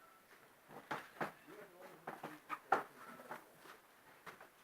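Quiet, indistinct human voices murmuring, broken by several short sharp clicks or snaps.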